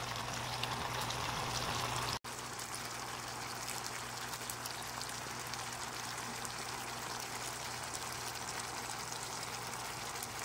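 Pork ribs simmering in a thickened soy-and-vinegar sauce in a frying pan, the sauce bubbling steadily over a constant low hum. The sound breaks off for an instant about two seconds in, then goes on the same.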